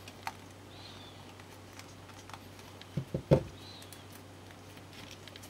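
Small plastic parts of a Nendoroid figure being handled by gloved hands: light clicks and taps as pieces are fitted and pegged together, with a cluster of three louder knocks a little past halfway. Two faint short squeaks and a low steady hum lie underneath.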